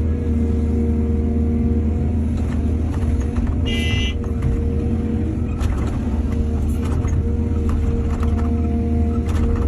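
Excavator's diesel engine running steadily under load with a low drone, with occasional knocks from the machine working and a brief high squeal about four seconds in.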